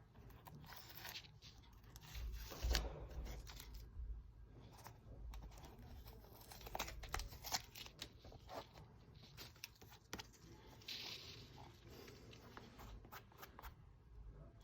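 Tape being peeled off a painted leather sneaker in a series of short, irregular rips and crackles, with crinkling as the removed tape is handled.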